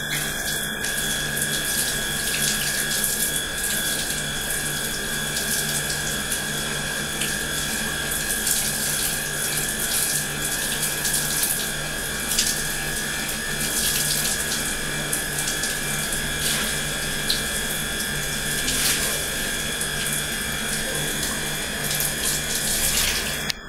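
Handheld shower spraying water over long hair and splashing into a bathtub during a hair rinse: a steady rushing hiss with a thin steady high tone beneath it.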